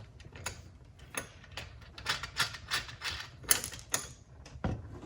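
A quick, irregular run of sharp clicks and rattles, densest in the middle: small metal and plastic parts being handled as the shipping crossbar is taken off a bike's front fork and the nuts on each side are loosened.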